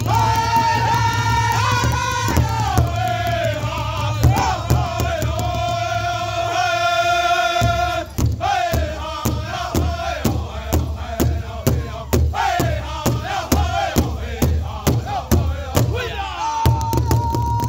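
Powwow drum group singing in high voices in falling phrases, all the men beating a large hide-covered drum together in a steady beat. The sound drops briefly about eight seconds in before the beat and singing carry on.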